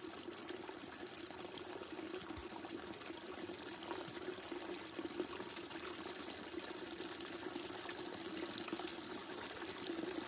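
Small waterfall on a creek, water pouring and trickling steadily.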